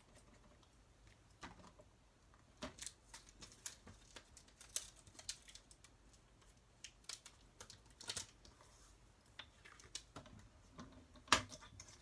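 Irregular small clicks, taps and paper rustles of cardstock and stamping tools being handled on a craft desk, with one sharper click about eleven seconds in.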